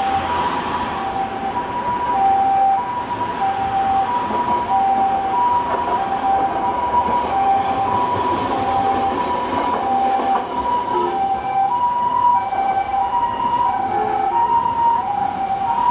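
Japanese ambulance two-tone siren, steadily alternating between a high and a low note (pee-paw), over street traffic noise.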